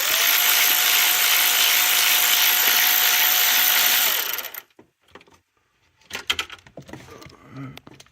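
Power tool with a 7 mm socket spinning out the ignition coil hold-down bolt. Its motor pitch rises as it spins up, holds steady for about four seconds, then stops. Light clicks and rattles of handling follow.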